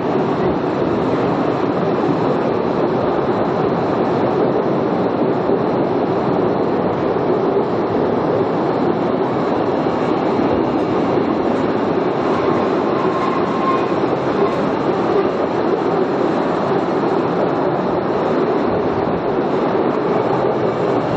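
Postojna Cave tourist train running along its rails: a steady, unbroken rumble of the moving cars and wheels, with a faint wheel whine partway through.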